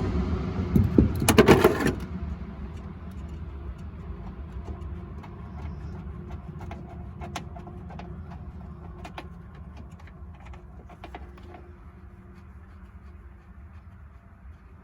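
A loud rush of noise with rapid clatter for about the first two seconds. Then scattered light metallic clicks and taps of hand tools working on the tail-light mounting bolts over a low steady rumble, the clicks dying away near the end.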